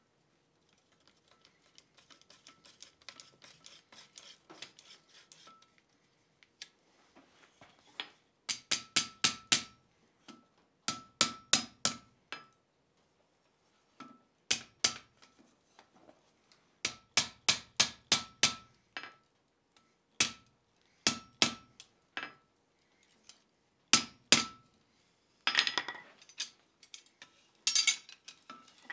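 Faint light clicking for the first few seconds, then a hand hammer striking the red-hot jaws of riveted scroll tongs on a steel anvil in quick runs of several blows with pauses between, each blow ringing briefly. The jaws are being lined up and closed after riveting.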